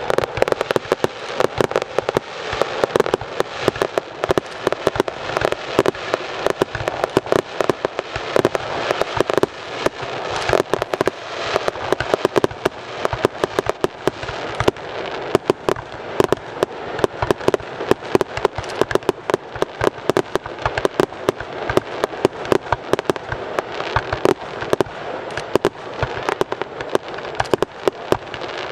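Fireworks display: a dense, unbroken barrage of rapid bangs, many a second, with no let-up.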